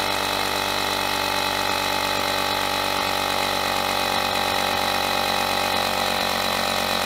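Cordless 20V tire inflator's compressor running steadily as it pumps up a football through a ball needle, the pressure climbing toward its 8 psi ball preset.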